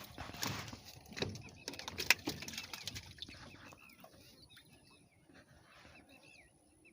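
A small bird chirping over and over, short bent notes about once or twice a second, that carry on through the second half. Before them come some rustling and a few sharp knocks, the sharpest about two seconds in.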